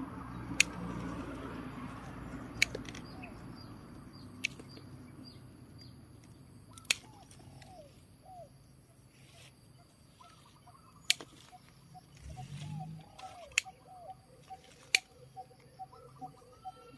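Small birds chirping in short repeated notes, thicker in the second half. A few sharp clicks come every couple of seconds.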